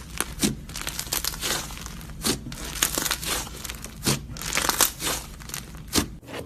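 Slime being squeezed and pressed by hand, giving irregular crackling pops and crinkles.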